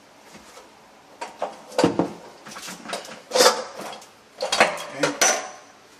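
Pliers clinking and clanking against the metal fitting of a braided flex line and the water heater's metal top while the connection is tightened: about five separate metallic knocks, the last with a brief ring.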